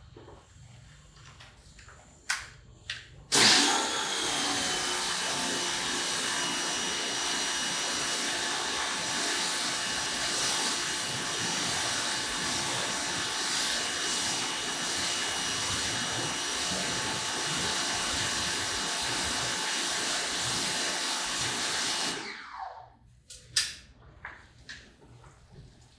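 Pressure washer rinsing soap off a truck panel: a steady hiss of high-pressure spray over the pump's motor hum. It starts suddenly about three seconds in and cuts off a few seconds before the end.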